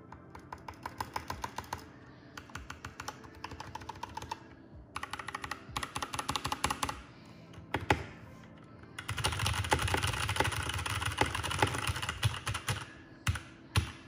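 Ajazz K620T mechanical keyboard with pre-lubed Ajazz pink linear switches and double-shot PBT keycaps being typed on in quick bursts of keystrokes. There are three short runs of rapid clacks, then a single louder press, then a longer, denser flurry of fast typing, and two last separate key presses near the end.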